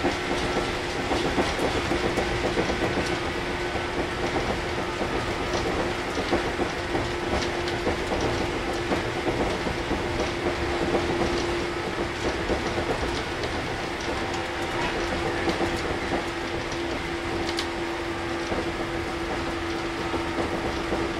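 JR 115 series 1000 subseries electric train running at a steady speed, heard from inside the car: a continuous rumble with a steady tone from the MT54 traction motors and gears, and clatter of the wheels on the track.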